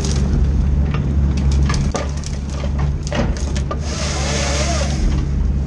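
Spruce limbs and stems cracking and snapping as a forestry machine's boom-mounted felling head works them, over the steady hum of the machine's engine heard from inside the cab. A brief hiss comes about four seconds in.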